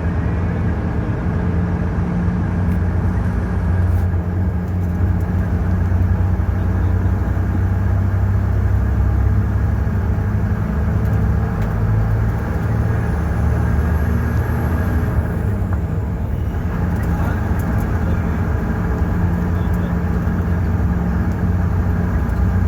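Ashok Leyland bus's turbocharged diesel engine running steadily under way, a deep drone with steady whining tones above it; a faint high whistle rises briefly about halfway through.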